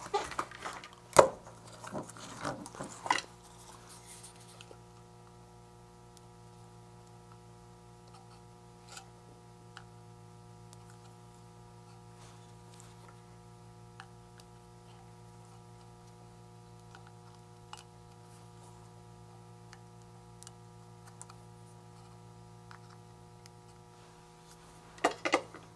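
Quiet electronics bench work: small clicks and knocks of tools and parts being handled while soldering a kit, loudest in the first few seconds and again near the end, with a few faint ticks between, over a steady electrical hum.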